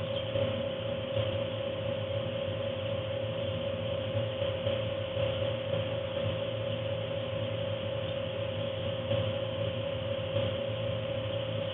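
Steady mechanical hum of a poultry-house forced-air heater running, with a constant mid-pitched tone over a lower drone and an even hiss.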